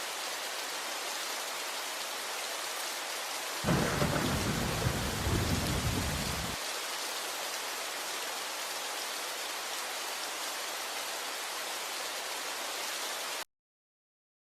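Steady rain falling, with a thunderclap about four seconds in that rumbles low for about three seconds. The sound cuts off suddenly shortly before the end.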